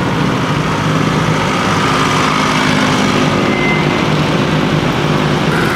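Classic racing sidecar engines running loud and steady, holding an even pitch with no revving up or down.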